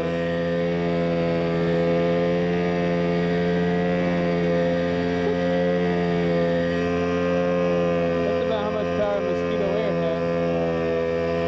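Mosquito Air homebuilt helicopter in flight, heard from on board: its engine and rotor run steadily at an even, unchanging pitch.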